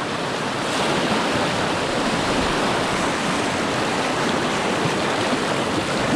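Steady rush of whitewater around a kayak as it surfs a wave, carried along without paddling.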